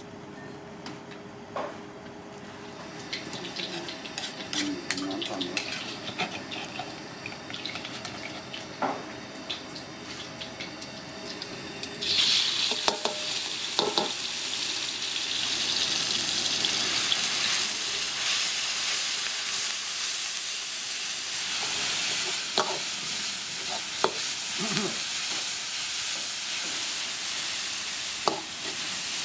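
Food frying in hot oil: after about twelve seconds of light utensil clatter, a loud sizzle starts suddenly and keeps going, with occasional sharp clinks of metal utensils against the pan.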